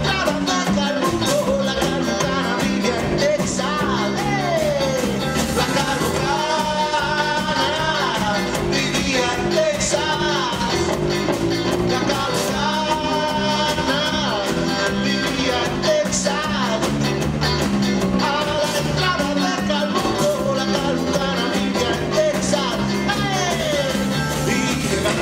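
Live rock band playing a song, led by an electric guitar over a steady drum beat.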